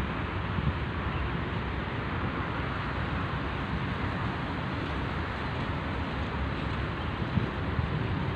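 Wind buffeting the microphone: a steady hiss with an uneven low rumble.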